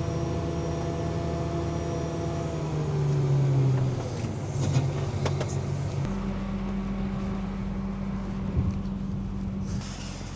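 Tractor engine running steadily; its revs drop a few seconds in, and about six seconds in the sound changes abruptly to a lower, steady hum.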